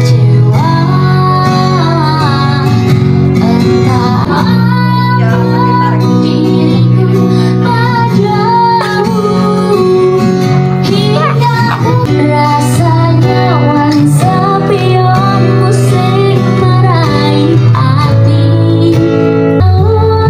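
Indonesian pop song with a woman singing over guitar and a steady bass accompaniment.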